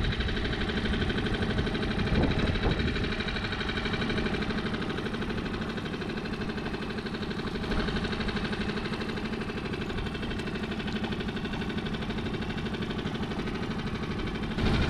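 Small outboard motor idling: a steady, even engine hum.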